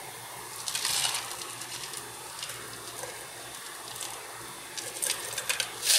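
White granules tipped into a plastic cup of liquid onto an aluminium can bottom: a brief pouring rush about a second in and several sharp ticks and rattles near the end, over a faint steady hiss.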